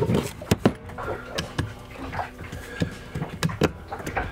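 Irregular small metal clicks and knocks, about ten of them, as a bolt, bushing and screwdriver are handled against the steel housing of a boat's anchor-windlass electric motor during reassembly.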